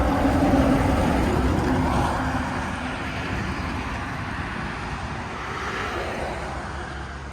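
Truck passing on the road: engine and tyre noise loudest at the start, easing over the first couple of seconds, then settling into steady road noise.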